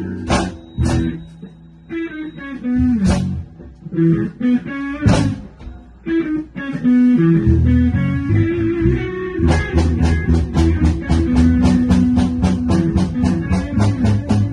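A band rehearsing: electric guitar and bass guitar playing, with a drum kit. The drums drop back to a few single crashes for a guitar-and-bass passage, then come back in with a steady beat about two-thirds of the way through.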